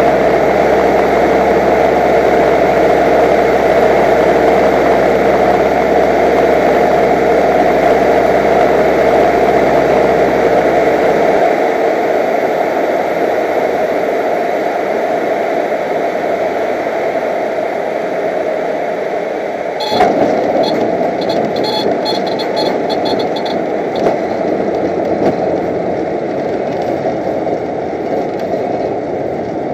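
Cockpit noise of a light single-engine propeller aircraft landing: the engine and propeller run with steady air noise, and the low engine hum drops away about a third of the way through. About two-thirds through, a thump marks the wheels touching down, followed by a few seconds of rattling as it rolls on the runway.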